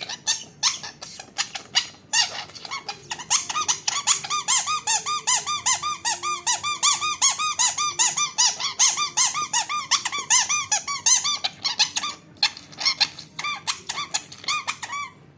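Squeaky rhinoceros toy being pressed over and over, giving short chirping squeaks that each rise and fall in pitch, several a second. The squeaks come sparse at first, crowd together through the middle and stop just before the end.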